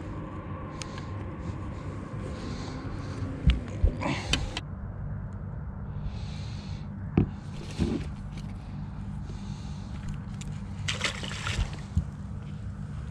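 Handling knocks and thumps on the carpeted deck of a small aluminium fishing boat, a few at a time in three clusters, over a steady low hum.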